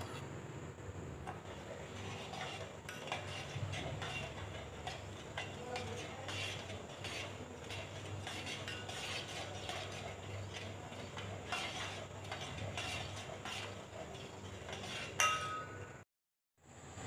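A spoon stirring sugar and water in a metal pot for sugar syrup, making irregular scraping clicks against the pot. Near the end a sharper clink rings briefly, then the sound cuts out for about a second.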